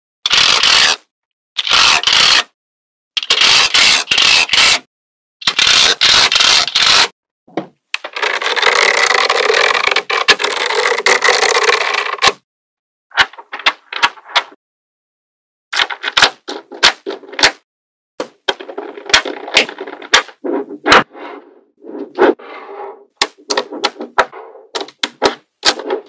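Small magnetic balls rattling and scraping against each other in short bursts as strips and sheets of them are pushed and rolled by hand, with one long continuous rattle in the middle. Near the end come many sharp separate clicks of balls snapping together.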